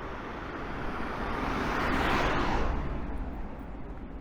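A vehicle passing by on the street, its noise swelling to a peak about two seconds in and fading away, over steady town traffic rumble.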